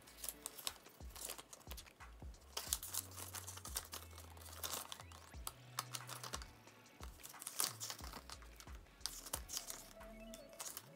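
Paper documentation leaflets and a small booklet from a phone box handled by hand: dry rustling with many quick clicks and ticks as the sheets are shuffled and the booklet is opened near the end. Quiet background music with low bass notes runs underneath.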